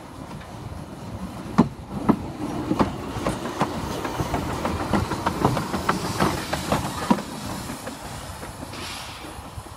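Narrow-gauge steam locomotive passing close by at low speed, its wheels clicking irregularly over the rail joints for several seconds. A short hiss of steam follows near the end.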